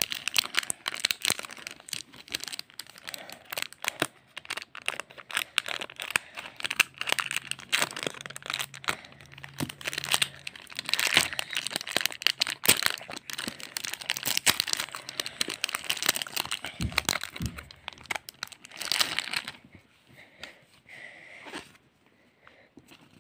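Foil Pokémon booster pack wrappers crinkling and tearing as they are opened by hand, a dense run of crackles that gives way to quieter rustling of the cards about twenty seconds in.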